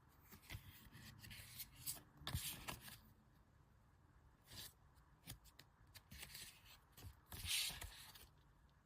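Unboxed goods and their packaging being handled: a run of light clicks and rustles, with the strongest bursts about two and a half seconds in and again about seven and a half seconds in.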